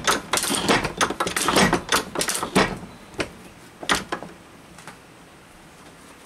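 Metal shaper running a cut on a metal plate in its vise, the ram and tool making rapid irregular rattling clicks, then stopping about three seconds in, followed by a few single clicks.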